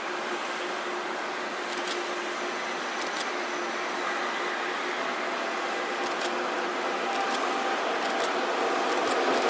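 Electric locomotive hauling a freight train on the approach, its running noise on the rails growing steadily louder, with a few faint ticks along the way.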